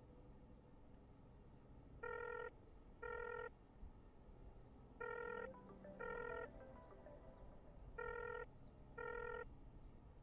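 A telephone ringing: electronic double beeps, three pairs in all, one pair every three seconds, with no answer.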